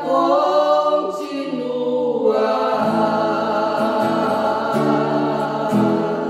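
Three women's voices singing a hymn in harmony, holding long notes, over a strummed acoustic guitar.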